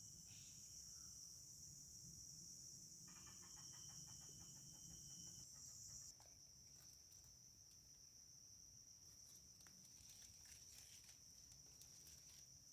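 Faint, steady high-pitched chirring of an insect chorus, with a short rapidly pulsing call about three seconds in and a few faint ticks near the end.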